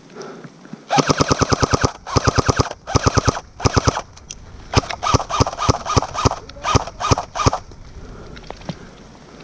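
Airsoft rifle firing: four quick full-auto bursts of rapid clicking shots, about one to four seconds in, then a string of single shots at about three to four a second for nearly three seconds.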